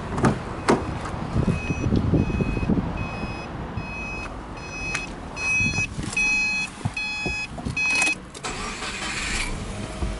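Subaru Impreza warning chime, a clear high beep repeating about twice a second for several seconds, louder near the middle and stopping shortly before the end. It comes after two sharp clicks of the car door being opened and some rustling as someone gets in. A short rush of noise follows the chime near the end.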